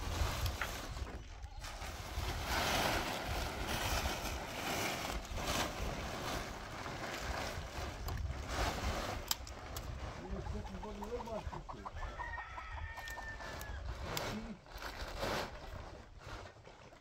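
Chickens clucking, with a rooster crowing about twelve seconds in, over a constant rough noise with many short knocks.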